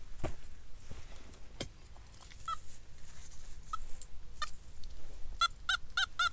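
Nokta Simplex Ultra metal detector sounding target tones as its coil passes over a freshly dug hole, signalling a buried target. A few single beeps are followed near the end by a quick run of about five beeps a second, each rising and falling slightly in pitch.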